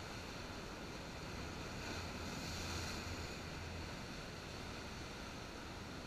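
Sea surf breaking and washing over shoreline rocks: a steady rush of foaming water that swells about two to three seconds in as a wave breaks, then eases. Heard through a camera's waterproof case.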